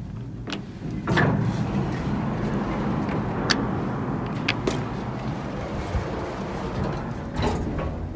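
Hitachi elevator's sliding doors opening with a steady mechanical running noise, then closing and stopping with a knock near the end. Button clicks sound along the way.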